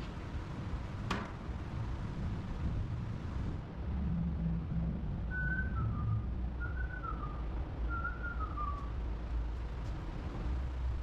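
A person whistling a short wavering tune in three brief phrases, over a steady low rumble. A sharp click sounds about a second in.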